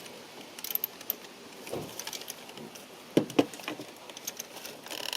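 Hand tools clicking and knocking on metal in a car's engine bay while being fitted to a spark plug, in scattered irregular taps with two louder knocks a little after three seconds in.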